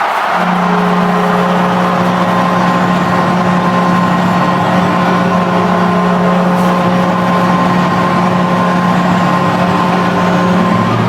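Barys Astana's arena goal horn, a real horn rather than a recording, sounding one long steady blast to signal a goal, over a cheering crowd.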